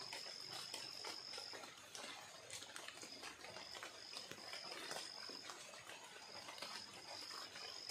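An animal's high-pitched steady call, coming and going in several bouts, over the even hiss of fast-flowing floodwater, with scattered light clicks.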